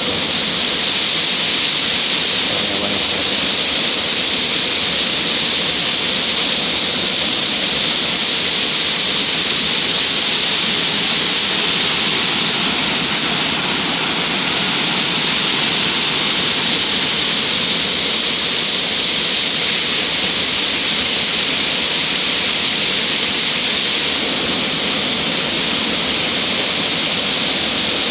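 Water gushing out of a seawall outfall and splashing onto rocks and into the sea: a steady, unbroken rushing.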